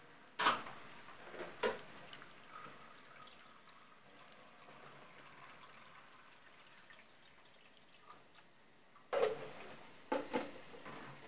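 A thin stream of liquid poured onto raw potato slices heaped in a frying pan, a faint trickle. Sharp knocks and clatter about half a second in, near two seconds in, and again near the end are the loudest sounds.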